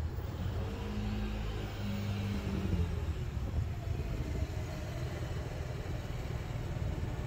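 A car engine running as a car pulls up and waits, over a low steady rumble of road traffic. A steady engine note is heard about a second in and fades before the middle.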